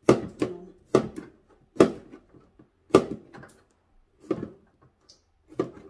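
Kitchen knife chopping through an aloe vera leaf, about six sharp knocks of the blade hitting the counter, roughly one a second.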